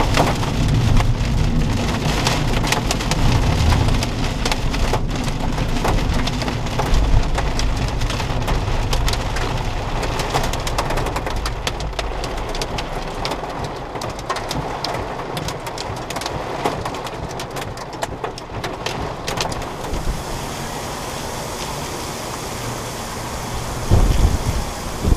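Heavy rain pelting a car's windshield and roof: a steady hiss dense with sharp drop impacts. Near the end, a loud burst of wind buffets the microphone.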